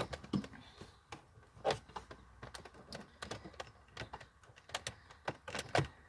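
Irregular light clicks and knocks of hard plastic as a Renault 9 instrument cluster is handled against the dashboard and the speedometer cable is worked into the back of the speedometer. The two loudest clicks come a little under two seconds in and near the end.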